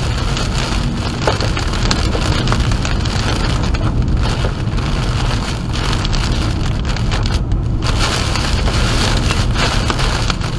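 Rain pelting the outside of a vehicle, heard from inside the cabin over a steady low rumble of road and engine noise.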